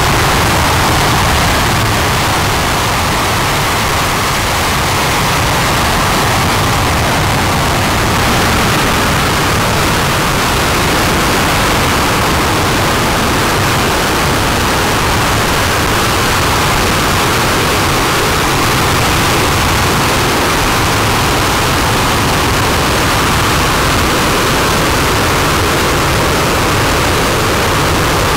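RS-25 liquid-hydrogen/liquid-oxygen rocket engine firing in a static hot-fire test on its test stand: a loud, steady rushing noise that holds even with no break.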